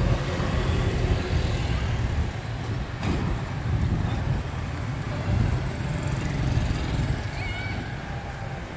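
Street traffic: motorcycles and motorized tricycles running past, a steady low rumble, with a brief high chirp near the end.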